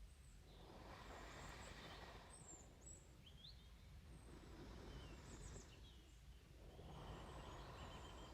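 Soft, slow breathing close to the microphone: two long, gentle breaths, each a rush of air lasting a few seconds, the second starting about six seconds in.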